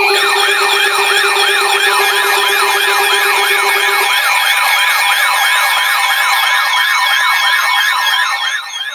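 Electronic emergency alert siren: a fast warbling tone rising and falling about four times a second over steady alert tones. A low steady tone drops out about halfway through, and the sound fades near the end.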